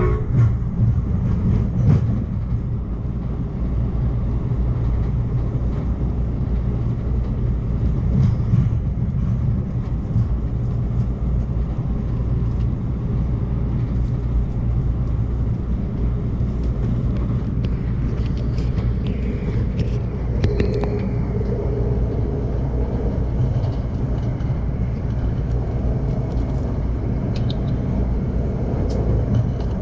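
Steady low rumble of an Amtrak Cascades passenger train running along the track, heard from inside a coach, with a few light knocks scattered through it.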